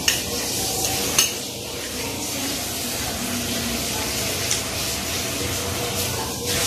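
A spoon and fork clink sharply against a glass plate twice in the first second or so, over a steady background hiss.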